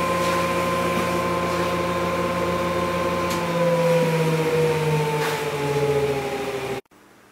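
Woodworking spindle shaper's motor running with a steady hum, its pitch sliding slowly lower from about halfway as the spindle coasts down after being switched off. The sound cuts off suddenly near the end.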